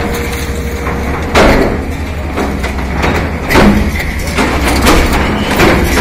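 Hydraulic excavator demolishing a brick-and-concrete building: several heavy crashes of the wall breaking up and rubble coming down, the loudest a little over a second in and again at about three and a half seconds, over the steady low rumble of the excavator's diesel engine.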